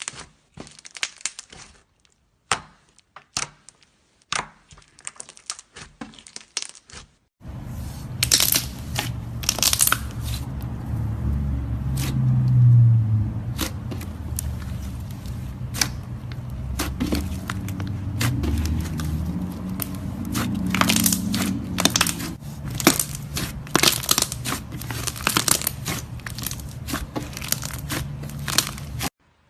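Slime being handled: crackling, sticky clicks and pops as it is pressed, stretched and pulled apart. About seven seconds in the sound changes abruptly to denser crackling and popping over a low steady hum.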